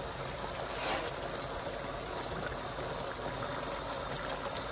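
Mutton pieces boiling hard in a large pot with only a little water left: a steady bubbling hiss, with a brief louder rush about a second in.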